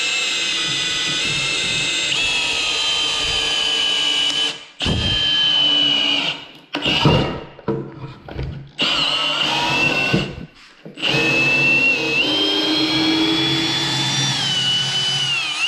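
Milwaukee M18 FUEL cordless drill-driver in drill mode and first (low) gear, driving a 22 cm lag screw into a wooden block through a 17 mm socket. The motor runs with a steady whine in several runs with short stops between them. Its pitch dips briefly under load in the last few seconds.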